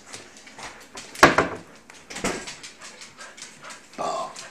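Wooden kitchen cabinet doors and drawers knocking and banging as a toddler pulls at them, with one sharp bang about a second in and another a second later. A dog whines briefly near the end.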